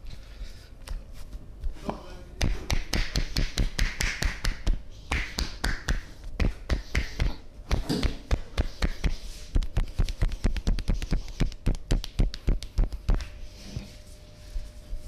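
Barber's hands tapping and slapping rapidly on a client's body during a percussive massage. The strikes come several times a second, starting about two seconds in and stopping shortly before the end.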